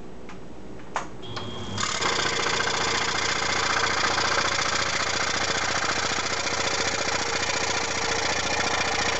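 Scroll saw switched on about two seconds in, then running steadily with its blade reciprocating rapidly as the wood is fed straight into it.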